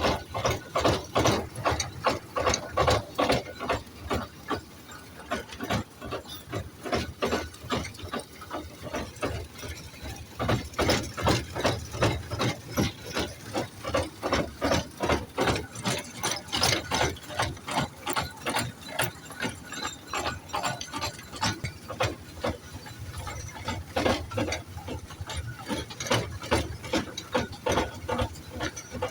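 Ride-on toy train running on its narrow track, its wheels and carriages clacking rapidly and rhythmically, about three clicks a second.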